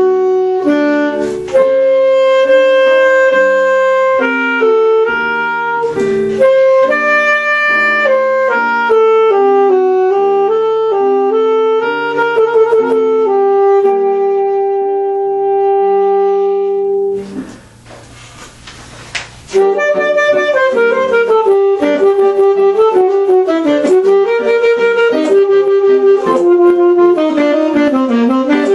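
Alto saxophone playing a Baroque sonata with accompaniment: long held notes, a break of about two seconds with only faint noise about two-thirds of the way in, then a quicker running passage.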